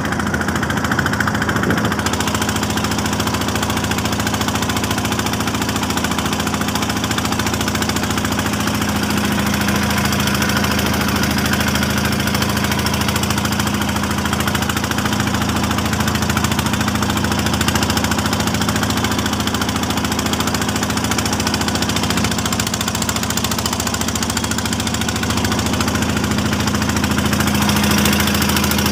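Engine of a small wooden fishing boat under way, running at a steady speed with an even, unchanging note.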